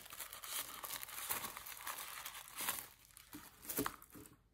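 Tissue paper crinkling and rustling as it is pulled out of a pair of shoes. It dies down after about three seconds to a few short crackles.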